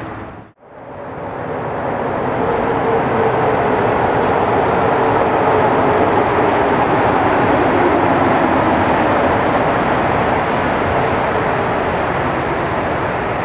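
Montreal Metro train running through a station. The sound fades in after a brief drop to silence near the start and then holds steady, with a faint high whine appearing in the last few seconds.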